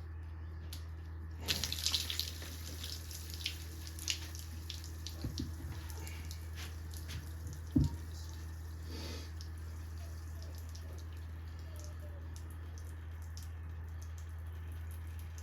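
Scattered light metal clinks and taps, with liquid dripping, as parts of a big-block engine are handled during teardown and its cylinder head comes off. A steady low hum runs underneath. The sharpest knock comes a little past halfway.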